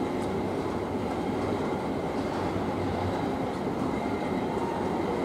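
Steady low mechanical rumble with a faint high whine, heard from behind glass.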